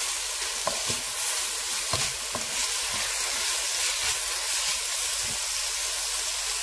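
Sliced onions frying in hot oil in a pan, a steady sizzle, stirred with a wooden spatula that gives a few light taps.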